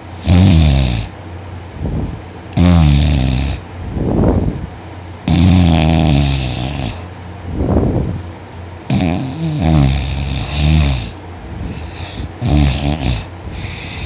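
A woman snoring very loudly in deep sleep: loud snores every two to three seconds, each with softer breaths between them.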